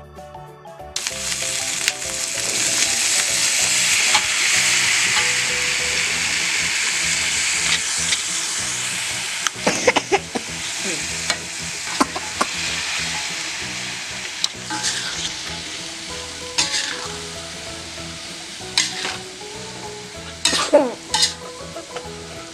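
Food sizzling in hot oil in a pan, starting suddenly about a second in and loudest over the following several seconds. A utensil scrapes and knocks against the pan every couple of seconds as the food is stirred.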